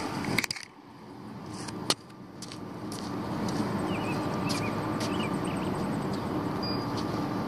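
Outdoor ambience of distant traffic, a steady low rumble, with a couple of sharp knocks about half a second and two seconds in and a few small bird chirps around the middle.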